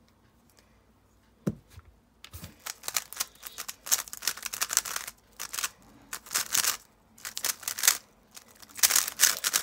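A 3x3 speedcube being turned rapidly by hand in a timed solve: runs of fast plastic clicking and clacking with brief pauses between them, starting about two seconds in. A single soft thump comes just before the turning starts.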